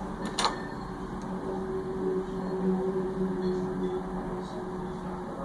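August Smart Lock's electric motor whirring steadily for about four seconds as it turns the deadbolt, after a sharp click about half a second in.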